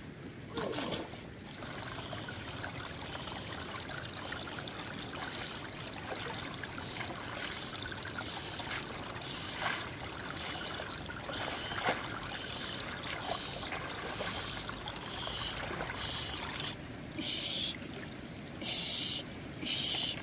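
Water trickling and sloshing, then a run of short splashes or pours repeating every second or so from about halfway through, louder in the last few seconds.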